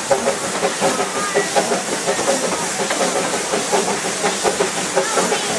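Darjeeling Himalayan Railway steam locomotive No. 19 under way, heard from an open carriage behind it: a steady hiss of steam with a rhythmic beat of exhaust chuffs and wheel clatter on the narrow-gauge track, about three to four beats a second.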